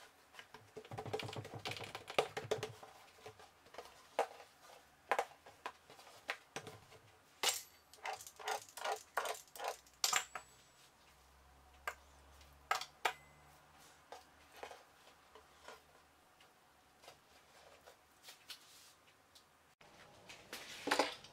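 Quiet, scattered taps and clicks of a knife and hands on a wooden worktop as yeast dough is cut into strips and rolled, some single and some in quick runs.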